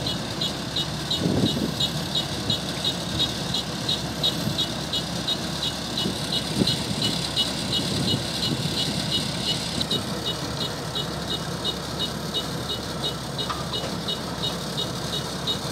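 Kubota DC-105X combine harvester's diesel engine running steadily, with a high-pitched pulsing about three times a second that fades about ten seconds in.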